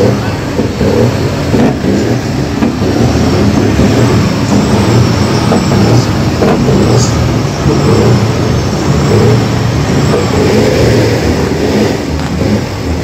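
Heavy semi-truck diesel engines running and revving, loud and continuous.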